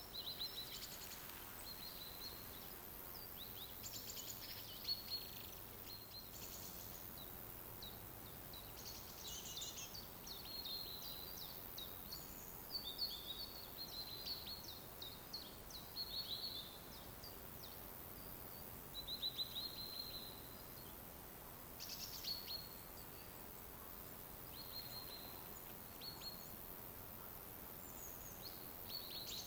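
Songbirds chirping and trilling in short, repeated bouts over a steady faint background hiss of forest ambience.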